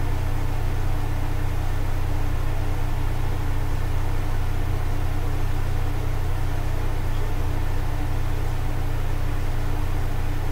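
A steady low hum with a faint higher tone and an even hiss over it, unchanging, like a fan or an appliance running in a small room.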